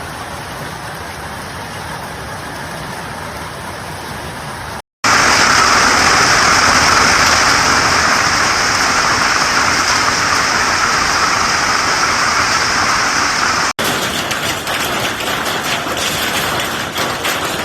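Hailstorm downpour: heavy rain beating down as a steady rushing noise, in three clips joined by sudden cuts. The middle clip is the loudest, and the last has many separate sharp hits of hail striking.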